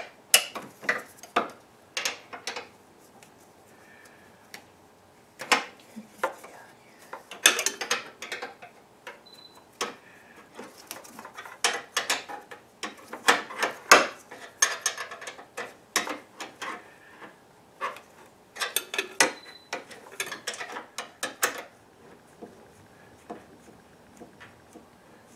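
Hand ratchet and wrench clicking and clinking against metal while a bolt is worked in a car's engine bay, in irregular bursts of rapid clicks that die away a few seconds before the end.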